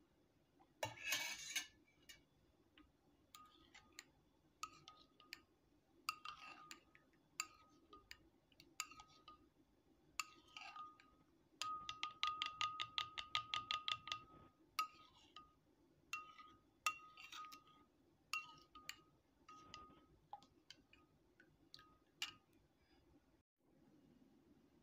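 Metal spoon whisking milk and yogurt starter in a porcelain bowl, clinking against the bowl's side. Scattered single clinks, a brief louder scrape about a second in, and a fast run of about eight clinks a second near the middle.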